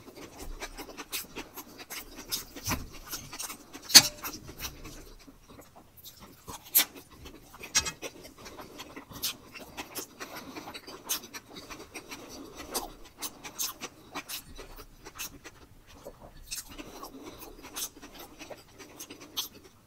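Close-miked chewing and mouth sounds: wet smacks and short clicks, irregular throughout, with one louder sharp click about four seconds in.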